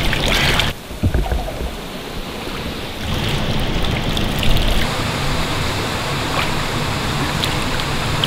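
Lake water sloshing and splashing around a person wading waist-deep, with a brief loud rush of water in the first second and a steady low rumble underneath.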